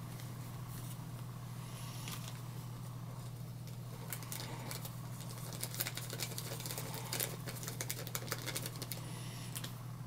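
Small folded seed packet crinkling and being tapped as it is opened and shaken out over soil, a flurry of light ticks and rustles between about four and nine seconds in. A steady low hum runs underneath.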